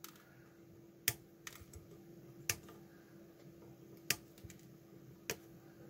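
Small side cutters snipping the excess capacitor leads off the back of a freshly soldered circuit board: a few sharp clicks, the loudest four spaced a second or more apart, over a faint steady hum.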